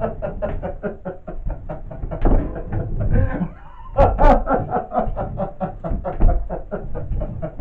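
A man laughing loudly and at length in a fast run of ha-ha bursts, about five a second. He breaks off briefly near the middle for a breath, then starts again louder.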